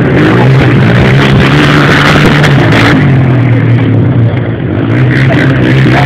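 Off-road vehicle engines revving, loud and continuous.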